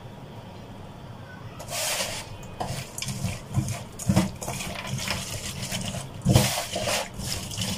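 Hands rubbing and turning a bowlful of small wet mola fish with salt in a steel bowl: irregular wet squelching and sloshing that starts about two seconds in, loudest about six seconds in.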